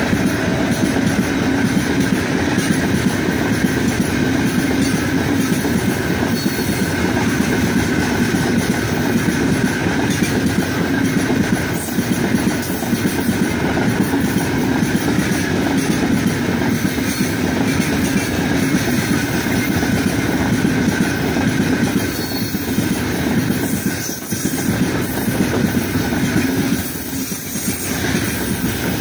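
Freight train of steel gondola wagons rolling past close by: a steady rumble and clatter of steel wheels on the rails.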